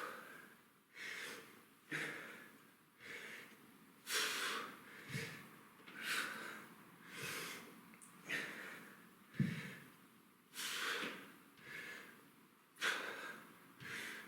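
A man breathing hard in a steady rhythm during kettlebell rows, a sharp breath about once a second in time with each pull, with two soft low thumps along the way.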